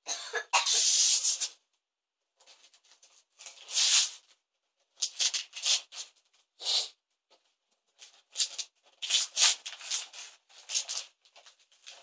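Patterned gift-wrapping paper being torn and crumpled off a present, in a string of irregular rustling bursts, the longest in the first second and a half.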